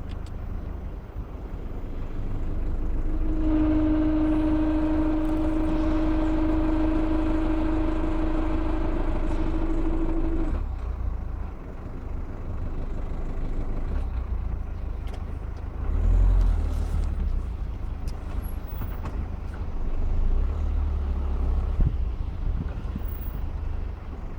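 Ford Focus clutch giving off a steady tone over the low engine and road rumble; it sets in about three seconds in and cuts off suddenly about seven seconds later. The noise seems to come from worn bearings in the clutch pressure plate.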